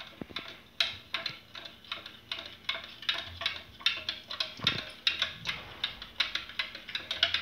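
A spoon stirring a drink, clinking against the glass about three times a second.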